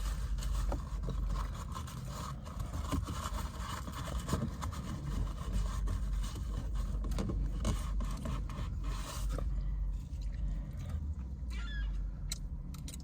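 Scattered scraping, rustling and clicking handling noises inside a car, over a steady low hum.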